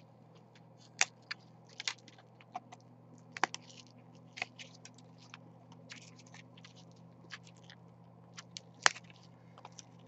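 Small irregular clicks and crackles of 3D-printed plastic support material being snapped and picked off a printed part by hand, the sharpest snap near the end, over a faint steady low hum.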